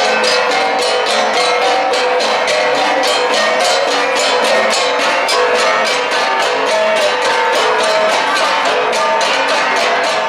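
Igorot gongs (gangsa, flat bronze gongs) played as an ensemble in a steady rhythm, about three to four strokes a second, the metal ringing between strikes.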